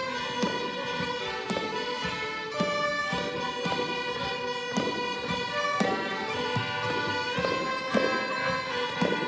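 Irish traditional music ensemble of fiddles, button accordions and tin whistles playing a tune together, with many held melody notes and a regular beat.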